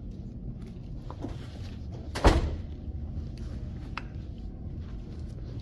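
A door closing with one loud knock a little over two seconds in, and a couple of fainter clicks before and after it.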